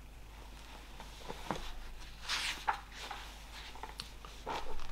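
Quiet small room with a few faint clicks and a soft rustle, small handling and movement noises from a seated person.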